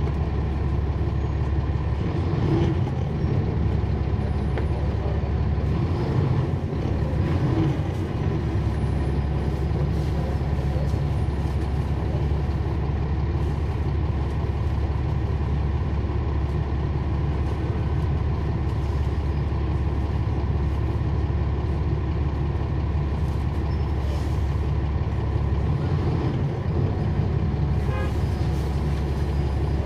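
Cummins ISL9 diesel engine of a NABI 40-SFW transit bus running, heard from inside the bus as a steady low drone that shifts slightly in pitch a few times.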